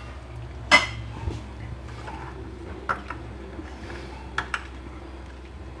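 A metal spoon clinking lightly against a ceramic bowl a few times while stirring cocoa powder into hot water. The first clink, about a second in, is the loudest.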